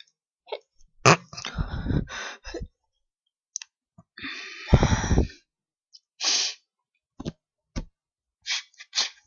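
A man stifling violent sneezes, holding them in: a run of sudden, muffled bursts. A sharp one comes about a second in with spluttering after it, the longest and loudest about halfway through, and two shorter ones near the end.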